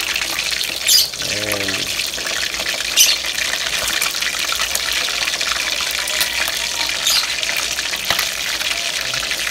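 Chicken pieces frying in hot oil in a wok: a steady crackling sizzle, with a few sharp clicks as tongs knock the pan while turning the pieces, the loudest about three seconds in.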